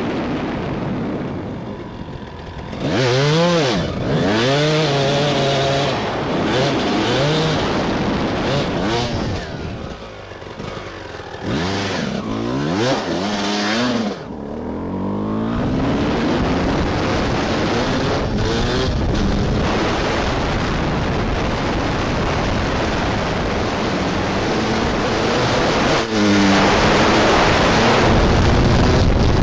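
Suzuki RM250 two-stroke motocross engine revving up and down again and again as the bike rides, its pitch rising and falling several times. Near the end a steady rush of wind on the microphone joins the engine.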